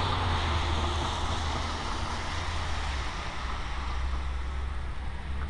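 Road traffic noise: a steady low rumble with a broad hiss that slowly fades.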